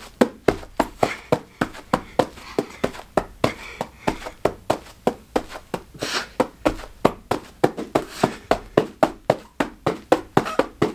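Hands slapping a carpeted floor in quick alternation during a plank hand-tap drill, about four to five sharp slaps a second.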